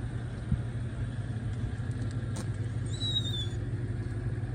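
A car engine idling: a steady low hum. A short high whistling tone, falling slightly, sounds about three seconds in.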